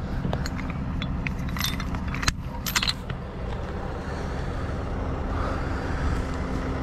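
Heavy wrecker's diesel engine running steadily, with recovery chain links clinking and rattling as the chain and hook are handled during the first three seconds.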